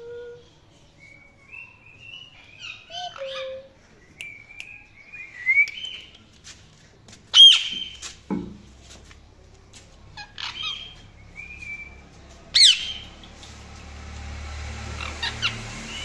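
Indian ringneck parakeet giving scattered short chirps and whistles, broken by two loud harsh squawks, one about halfway through and one near the end.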